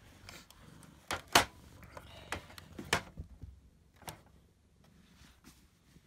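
A few sharp clicks and knocks, the loudest about a second and a half in, from a power strip and a plug-in watt meter being handled and set up.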